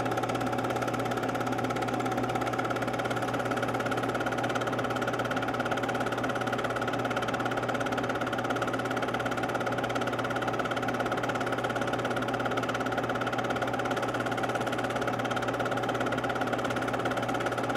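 Steady mechanical whir and hum of a film projector running, unchanged through the cuts in the picture.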